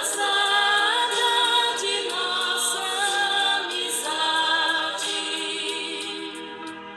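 Background music: a choir of voices singing in harmony, with little or no instrumental backing, getting quieter near the end.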